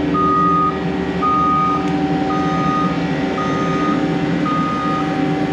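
A vehicle's reversing alarm beeping steadily, one even tone about once a second, over the hum of its running engine as it backs up.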